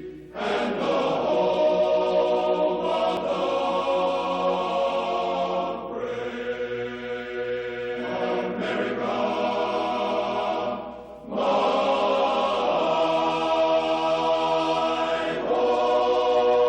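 Choir singing the national anthem in long, sustained chords, with short breaks between phrases about six and eleven seconds in.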